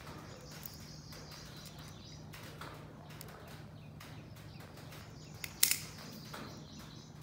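Faint background with a steady low hum and light bird chirping, broken by a single sharp click about five and a half seconds in.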